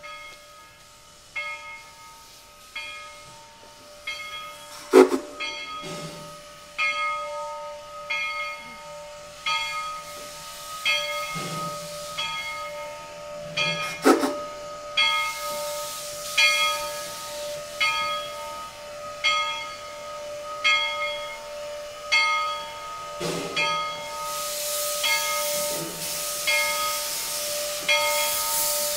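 Bridgton & Saco River No. 7, a 2-foot gauge steam locomotive, ringing its bell steadily, a little more than one stroke a second, as it moves off, with steam hissing from around the cylinders that grows louder near the end. Two sharp knocks sound, one about five seconds in and another about fourteen seconds in.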